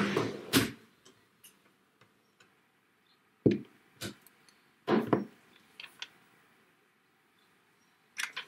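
Clear plastic stamp sheets and an acrylic stamp block being handled and set down on a craft mat. A rustle at the start is followed by several sharp plastic taps and clicks, spread over a few seconds, with more near the end.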